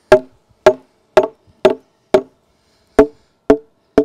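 Hammer blows on a wooden 6x6 post, eight sharp strikes about two a second with a short pause in the middle, each ringing briefly at a few pitches.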